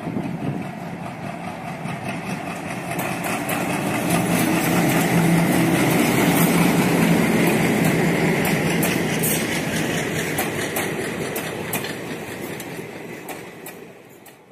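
An Alco diesel locomotive hauling a passenger train passes by, its engine drone mixed with wheels clacking over the rail joints. The sound grows to a peak about halfway through and fades away near the end.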